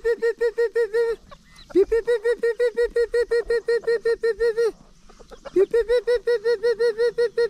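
Bantam hen giving fast runs of alarm clucks, about eight a second, in three bursts of two to three seconds with short breaks. She is guarding her newly hatched chicks.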